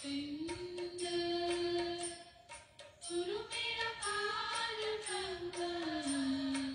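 Background music: a single voice sings a slow, chant-like melody in long held notes that slide up and down between pitches, over instrumental accompaniment.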